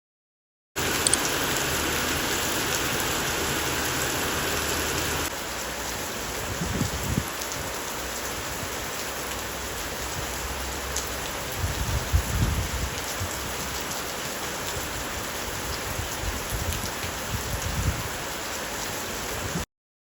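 Steady rain falling, an even hiss of drops, a little quieter from about five seconds in, with a few brief low rumbles.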